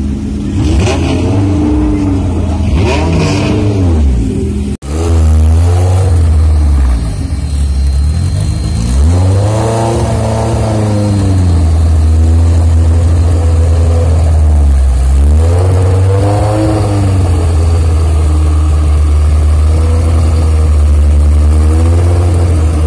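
Race-built Honda Civic four-cylinder engine through a loud open exhaust, held at a steady high idle and blipped several times, the revs swinging up and falling back each time. The sound breaks off sharply for a moment about five seconds in.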